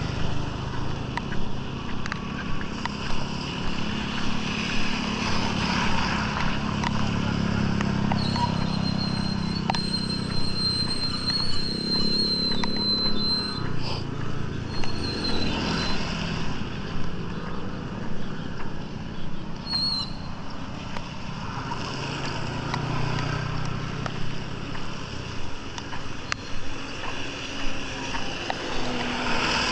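Motor vehicles passing, their engines swelling and fading over a steady wash of noise. A thin high whine holds for several seconds about a third of the way in.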